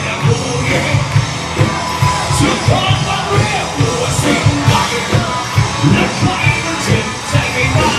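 Live rock band playing loud: drums keeping a fast, steady beat, electric guitar, and a singer's voice through the PA.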